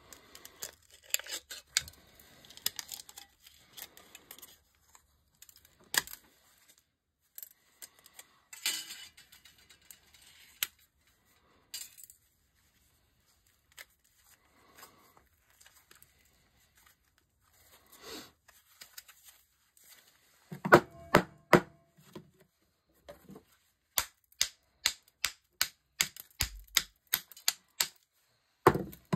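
Thin sterling silver sheet being bent and peeled off a weighted candlestick's white filler base, with scattered small crinkles, clicks and scrapes. About two-thirds of the way through comes a cluster of loud knocks, then a run of sharp hammer taps, about two a second, as a tool is driven into the filler.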